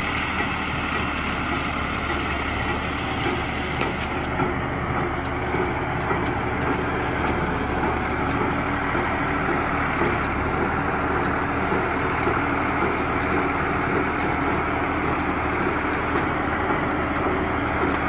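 A tractor-driven round baler running: a steady engine hum with light clicks about twice a second from the machinery.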